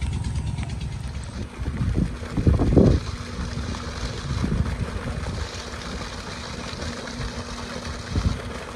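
Wind buffeting the microphone: a low, uneven rumble with a few louder gusts about two to three seconds in. A faint steady hum sits underneath.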